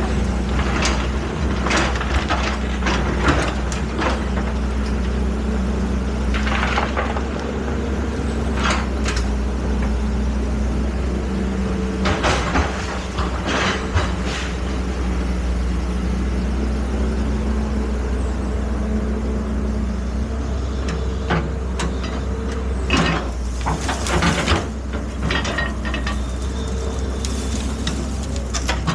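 An excavator's diesel engine running steadily under load, with repeated metallic clanks and knocks from the working machine and a few short hissing bursts, the strongest about three-quarters of the way through.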